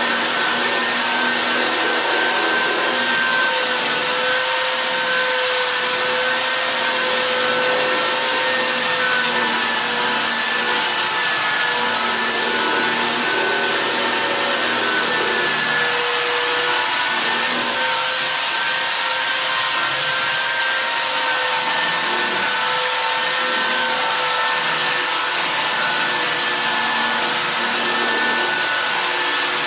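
Hand-held electric sander running on pine floorboards, a steady motor whine with a hiss of abrasive on wood; its pitch wavers slightly as it is worked across the boards.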